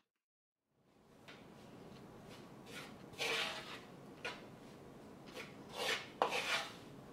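A fork stirring and scraping through a dry flour mixture with yogurt and oil in a bowl, starting about a second in, with several louder rasping strokes against the bowl from about three seconds in.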